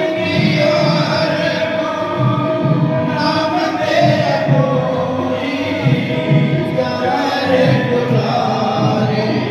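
A devotional aarti hymn sung by voices over musical accompaniment, running steadily.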